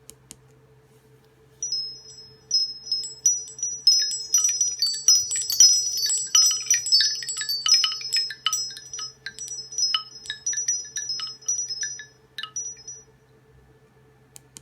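Nokia Asha 302 ringtone of wind-chime tinkling: many quick, high chime notes that start about a second and a half in, crowd together in the middle and thin out, stopping shortly before the end. A faint steady low hum runs underneath.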